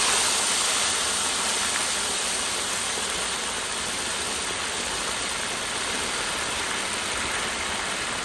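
Marinated chicken wings deep-frying in about two and a half litres of very hot oil in a large pan: a loud, steady sizzle of the oil bubbling up around them, easing a little over the seconds.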